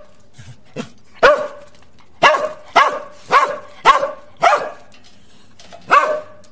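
A dog barking repeatedly: seven loud, sharp barks about half a second to a second apart, with a longer pause before the last one.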